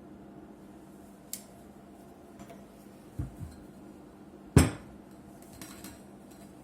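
Hard objects being handled and set down: a light click just over a second in, two dull thumps around three seconds, one sharp loud knock about four and a half seconds in, then a few faint clinks, over a low steady hum.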